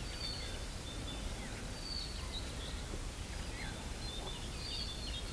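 Quiet outdoor ambience: a steady low background noise with faint, scattered bird chirps.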